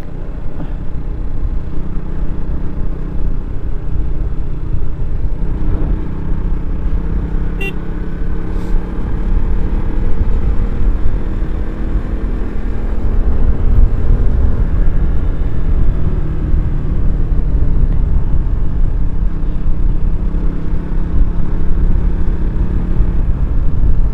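Single-cylinder KTM sport bike engine running at a steady cruise, its note rising and falling a little through the bends, over a deep rumble of wind on the microphone.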